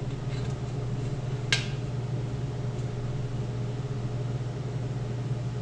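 Vacuum hose fitting being screwed onto the glass vacuum chamber, with a single sharp click about a second and a half in, over a steady low hum.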